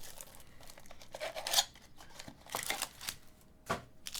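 Trading-card pack wrappers crinkling and tearing, with cards being handled, in a few irregular bursts; the loudest is about a second and a half in.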